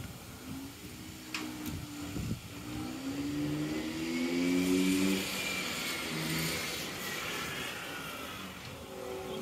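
Small home-built scooter's engine running as it is ridden, its pitch rising with the revs then levelling off, fading a little and growing louder again near the end as the scooter comes back toward the microphone.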